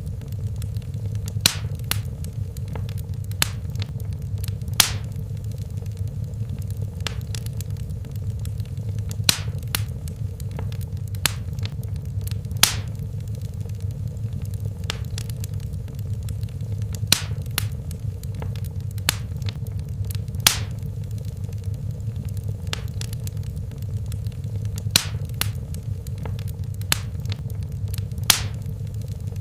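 Wood fire burning in a fireplace: a steady low rumble of flames with sharp, irregular pops and crackles of burning wood every second or two.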